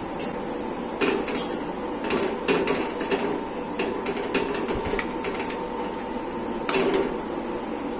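Metal spoon stirring fusilli pasta in milk in a metal kadai, with irregular scrapes and clinks of the spoon against the pan.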